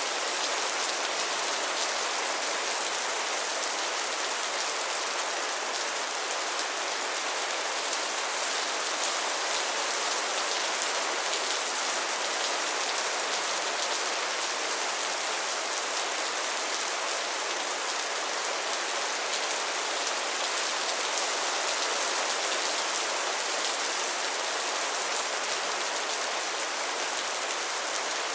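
Steady rainfall, an even hiss of drops falling on a surface.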